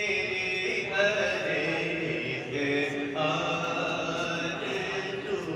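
A man chanting a naat (Urdu devotional poem) into a microphone, unaccompanied, in long melodic phrases with held notes that slide between pitches.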